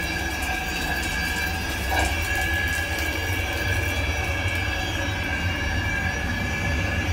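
Passenger train running, heard from inside a coach: a steady low rumble from the running gear with a constant high-pitched squeal over it, and a single bump about two seconds in.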